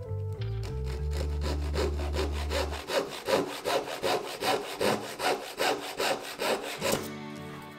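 Japanese hand saw cutting through a small piece of thin wood in quick, even rasping strokes, about three a second, stopping about seven seconds in.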